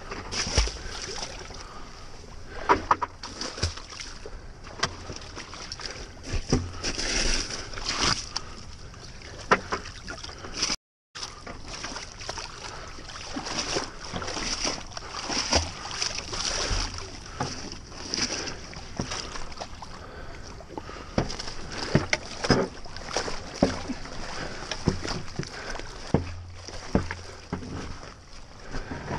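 Stand-up paddleboard and paddle breaking through thin skim ice: repeated sharp cracks and crunches as the ice sheet splits, with broken pieces clinking and water sloshing against the board.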